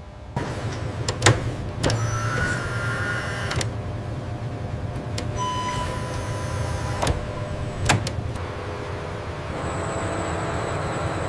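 Factory machinery running: a steady low hum with several sharp knocks scattered through it and short electric-motor whines, like a powered assembly tool or actuator starting and stopping.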